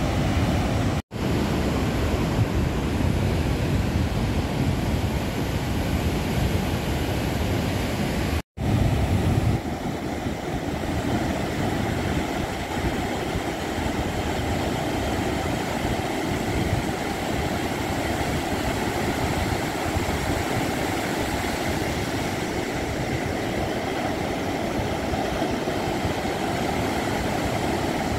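Ocean surf from ex-Hurricane Franklin's swell breaking and washing up a sandy beach, a steady rushing noise with a low rumble, likely wind on the microphone. The sound cuts out abruptly for an instant about a second in and again about eight seconds in.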